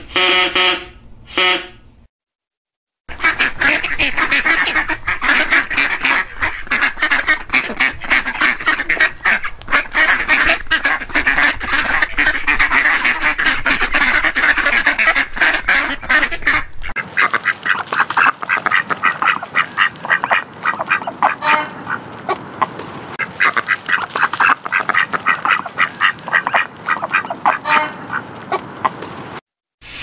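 Mallard ducks quacking in a dense, continuous chorus. A short pitched call and about a second of silence come before it. About 17 seconds in it changes to a thinner group of quacking ducks.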